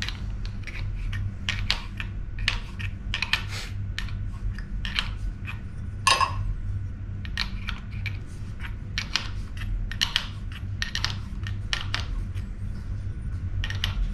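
Metal hand tools and hose fittings clinking and tapping irregularly, with one louder ringing clink about six seconds in, over a steady low hum.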